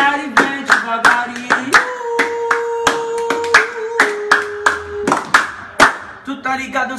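Hand claps keeping a quick, steady beat under a voice singing, which holds one long note for about three seconds in the middle.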